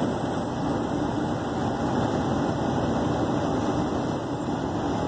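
Steady engine and tyre noise of a vehicle cruising on a highway, heard from inside the cab.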